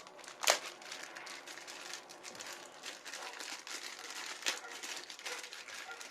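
Plastic packaging crinkling and rustling as the parts of a new floor fan are handled and unwrapped, with a sharp louder crackle about half a second in and another near the end.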